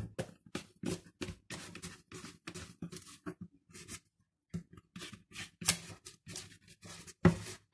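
Hands scraping and pulling risen bread dough out of a plastic mixing bowl: a run of short rubbing and scraping sounds, a few a second, with a brief pause about four seconds in.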